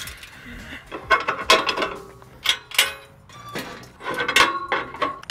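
Aluminium trailer loading ramps being lifted upright and set in place: a series of metal clanks and rattles, some ringing briefly.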